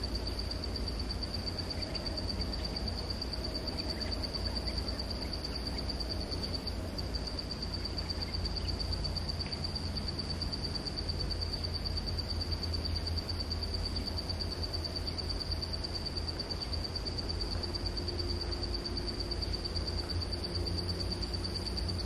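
An insect's steady, high-pitched drone, one unbroken tone that breaks off briefly about seven seconds in, over a low background rumble.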